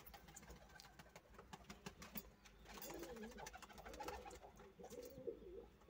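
Faint pigeon cooing that starts about halfway through, over light, irregular ticks of a pigeon pecking grain from a metal bowl.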